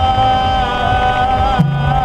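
Buddhist sutra chanting (dokyo) by voices holding long, steady notes that waver slightly in pitch, with a lower voice coming in near the end.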